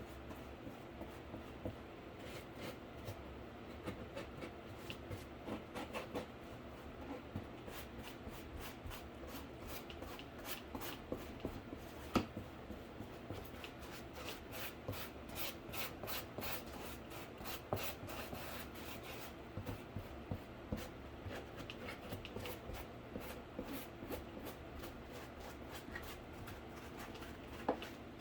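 Paintbrush strokes scratching and rubbing over a cardboard PC case as paint is brushed on, in many small irregular ticks over a steady low hum.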